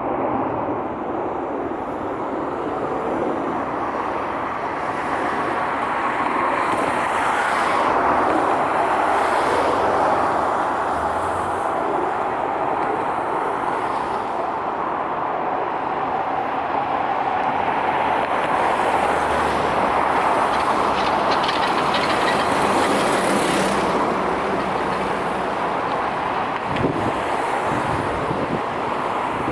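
Jet airliner engines running: a steady rushing noise that slowly swells and eases, with a couple of brief knocks near the end.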